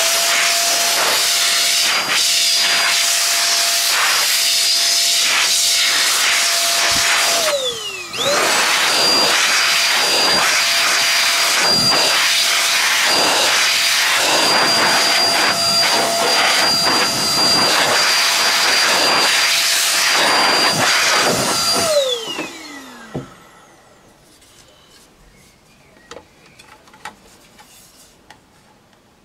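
Electric high-pressure air blower blowing dust out of a water-cooled PC's radiators: a loud rush of air under a steady motor whine, in two long bursts. Each burst ends with the whine falling away as the motor spins down, the first about a quarter of the way in and the second about three-quarters through. After that only faint clicks remain.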